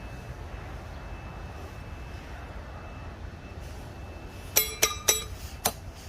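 Metal camping gear clinking: four sharp, ringing metallic clinks close together near the end, over a steady low outdoor rumble.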